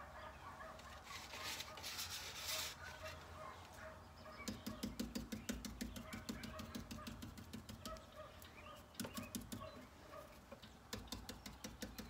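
Stiff-bristled stencil brush pounced rapidly on a taped-down stencil: quick light dabbing taps, several a second, in two runs starting about four and a half seconds in.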